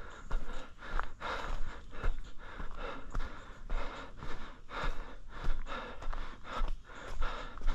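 A trail runner breathing hard and rhythmically while running, with regular footfalls on the trail.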